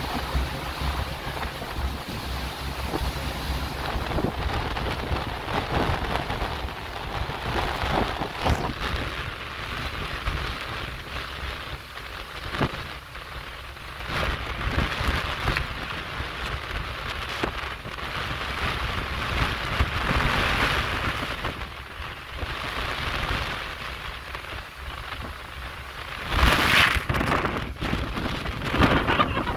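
Wind-driven rain spattering on a boat's deck and windows, the rushing noise swelling and easing with the gusts, with a louder rush near the end.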